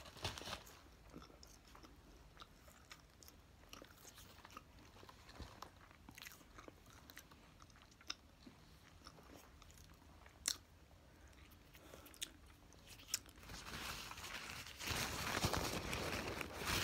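Close-up chewing and biting of a bacon burger on a pretzel bun: quiet mouth sounds with scattered sharp clicks, then a louder stretch of noise in the last few seconds.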